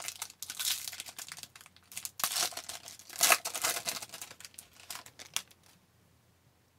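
Foil trading-card pack being torn open and crinkled by hand, a dense crackling rustle that stops about five and a half seconds in.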